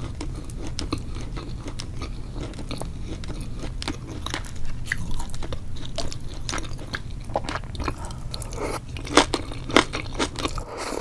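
Close-miked mukbang eating sounds: wet chewing, biting and mouth smacks on a spicy seafood boil of octopus, squid and enoki mushrooms, as sharp clicks that come thicker and louder over the last few seconds, over a steady low hum.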